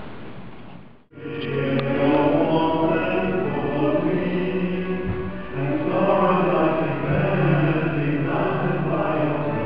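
Voices singing a slow liturgical chant, coming in about a second in after a brief drop to silence.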